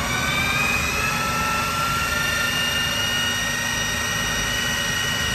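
Electric food processor running, its motor whine still climbing in pitch through the first second as it comes up to speed, then holding steady while it chops and mixes a batch of cooked salmon and vegetables.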